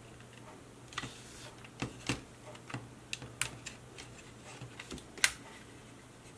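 Irregular light clicks and taps of small parts being handled and fitted during the reassembly of an LED light strip, the sharpest click about five seconds in, over a faint steady hum.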